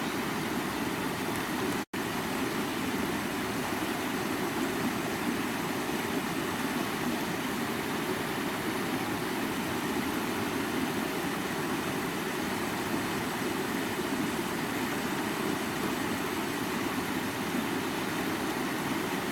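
Creek water running steadily, a constant rushing flow. The sound drops out for an instant about two seconds in.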